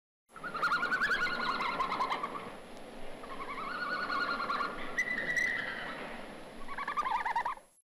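Red panda giving a series of quavering, warbling twitter calls, about four in a row, over a faint hiss.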